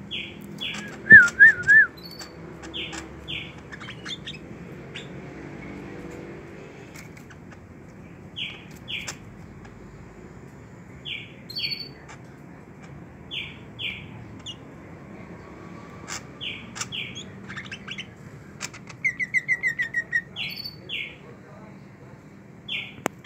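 Pet bird chirping: short notes in pairs, repeated every two to three seconds. There is a louder warbled phrase about a second in and a quick trill near the end.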